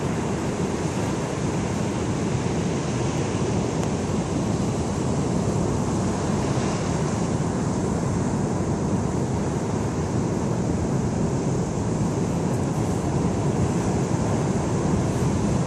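Heavy storm surf breaking over offshore rocks and washing up a sand beach, a continuous rush of white water, with wind on the microphone.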